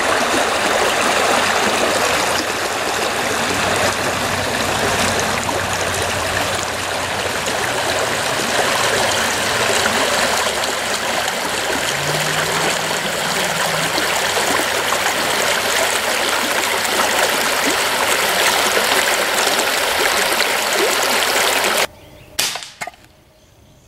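Shallow creek running over rocks: a steady, loud rush of water that cuts off abruptly near the end, followed by a couple of short, sharp noises.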